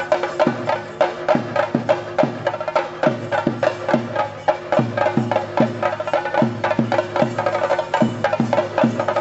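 Chenda drums beaten with curved sticks in a fast, dense rhythm, with deep strokes that drop in pitch about twice a second. A steady ringing tone runs under the drumming.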